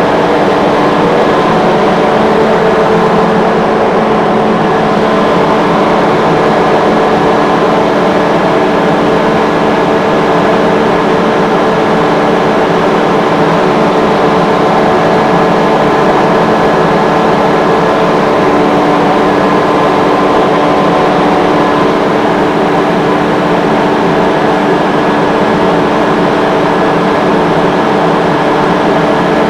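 Industrial rotary screw air compressor running at a steady load: a loud, even machine noise with several steady hum tones.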